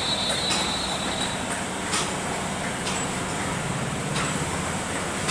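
Two-colour Super Solna offset printing press running: a steady mechanical hum and clatter from its rollers and drive, with a few sharp clicks.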